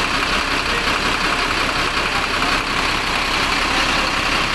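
Diesel engine of an ALS intercity bus idling steadily, running again after repair work.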